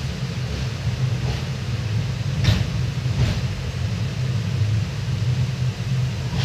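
Passenger train carriage rolling slowly, heard from inside: a steady low rumble of wheels and carriage, with two short sharp clicks about two and a half and three seconds in.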